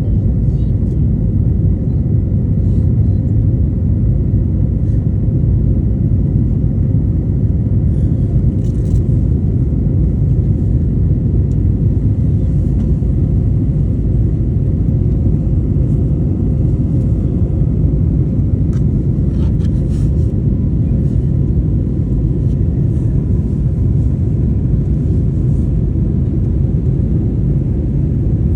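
Steady cabin noise inside an Airbus A321LR neo airliner in flight: an even low rumble of engines and rushing air, with a faint steady whine above it.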